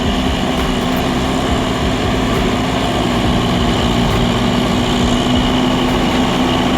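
Loaded forestry forwarder's diesel engine running steadily as the machine drives through deep mud.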